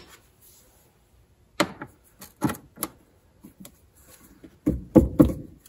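Irregular metal knocks and clanks from an 18 mm socket wrench working the upper rear shock bolt loose: a few sharp knocks, then heavier thuds near the end.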